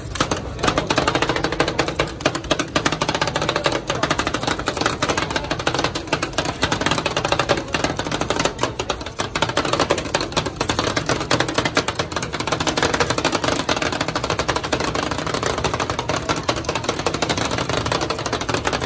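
Two metal spatulas rapidly chopping and scraping ice cream on a stainless-steel cold plate, a fast continuous clatter of metal-on-metal taps as the rolled-ice-cream base is worked while it freezes.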